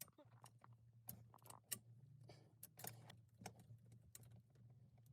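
Faint scattered clicks and ticks of an Allen wrench working the hex bolts of a metal roll-bar clamp, over a low steady hum.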